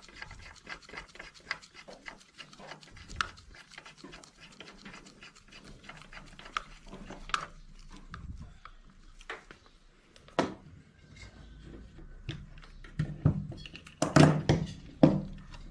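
Ratchet wrench clicking in irregular short runs while the bolts of the crankshaft vibration damper are run in, with a few louder knocks near the end.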